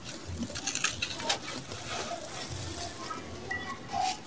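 Dry, gritty sand-cement mix being crushed and rubbed between bare hands: a steady grainy crumbling hiss as grains grind and trickle down, with a few sharper crunches as clumps break.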